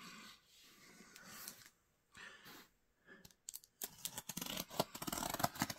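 Soft rustling of parcel packaging being handled, then from about three and a half seconds in a louder run of sharp clicks, scratching and tearing as the packaging is cut and pulled open.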